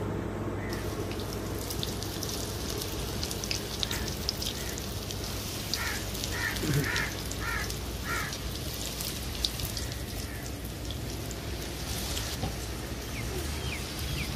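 Outdoor field ambience: water running in a small irrigation channel over a steady low hum. A bird calls about five times in quick succession a little past the middle, and short falling chirps come near the end.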